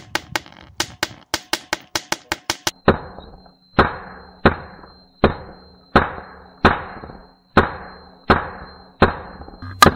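Small annular pulse detonation engine running on mixed hydrogen-oxygen (HHO) gas from electrolysis, firing in a string of loud, snappy detonations. Quick sharp snaps come about four a second at first; from about three seconds in they become heavier bangs with short ringing tails, roughly one every three-quarters of a second, over a faint steady high whine.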